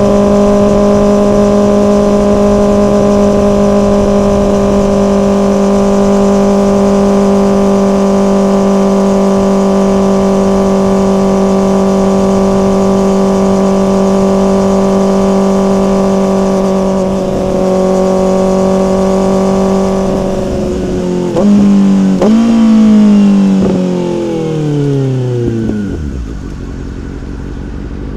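Motorcycle engine held at steady high revs for about twenty seconds. Near the end it gives a couple of quick rev jumps, then the pitch falls away as the bike decelerates down to a low rumble.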